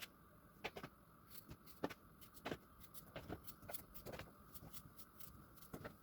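Scattered light clicks and knocks of kitchen items being handled, at irregular intervals over a faint steady hum.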